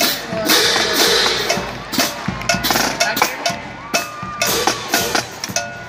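School marching drumline playing as it moves, with sharp drum strokes in a quick, uneven rhythm, over crowd chatter echoing in a large arena.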